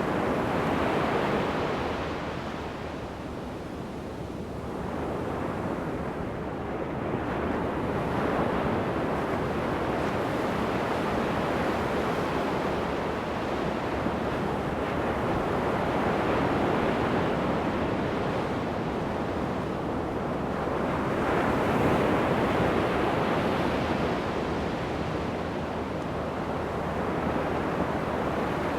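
Ocean surf breaking and washing up a sandy beach, a continuous rushing that swells and eases with the waves, loudest about three-quarters of the way through.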